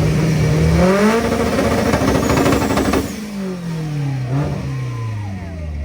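Mitsubishi car engine held against a two-step launch limiter, revs pinned high with rapid crackling pops. About three seconds in it is let off and the revs fall away toward idle, with one brief blip on the way down.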